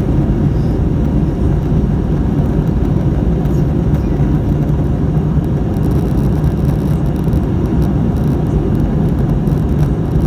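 Cabin noise inside an Airbus A320neo with Pratt & Whitney PW1100G geared turbofan engines: a loud, steady low rumble of engines and airflow with a faint hum underneath.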